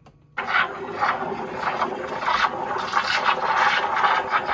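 Milk frother running in milk to froth it, a loud steady noise that starts about half a second in and goes on without a break.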